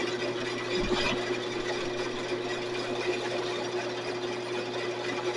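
Sears Craftsman 12-inch two-speed bandsaw running freely on its new wheel tires, a steady motor hum with an even whirr from the blade and wheels.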